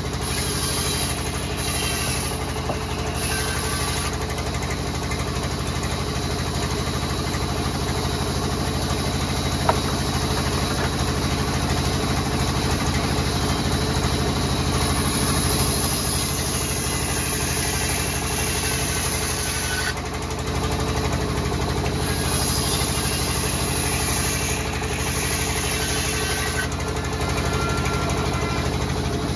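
Large sawmill band saw running steadily, its drive humming, while the blade cuts through a wooden slab. A high hiss comes and goes in several stretches as the blade bites into the timber, with a single short click about ten seconds in.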